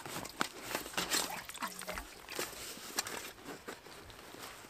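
Fabric rustling and soft knocks of a canteen being pulled out of a canvas canteen-carrier bag and set down on the grass, then hands rummaging inside the bag. Irregular clicks and rustles, busier in the first half and quieter toward the end.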